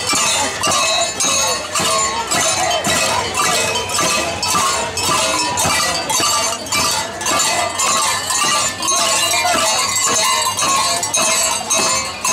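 Live Andean carnival music: a hand drum beating steadily about twice a second under a high, wavering melody.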